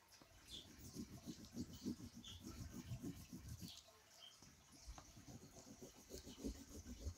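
Wax crayon rubbed over paper in quick back-and-forth strokes, filling in a dark area of colour; faint, with a short lull a little past halfway.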